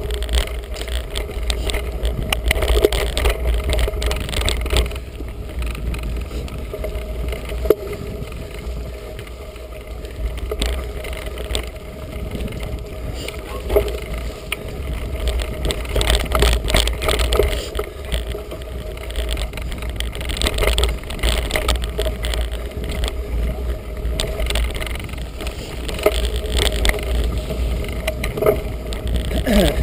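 Felt Edict Elite mountain bike ridden over a rough, muddy woodland track: wind rumbling on the action camera's microphone, tyre noise, and frequent clicks and rattles from the bike over bumps.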